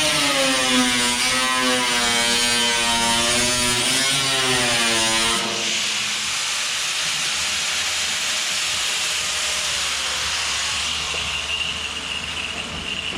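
Power cut-off tool cutting the sheet steel of a car's front quarter panel. The motor's whine dips and rises in pitch under load for about five seconds, then settles into a steadier hiss that fades near the end.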